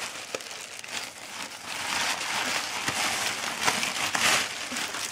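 Plastic mailer bag crinkling and rustling as it is pulled open by hand, loudest about halfway through.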